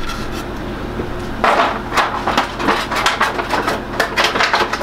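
Small plastic action-figure parts and their packaging being handled: a quick run of light clicks and knocks that starts about a second and a half in, over a steady low hum.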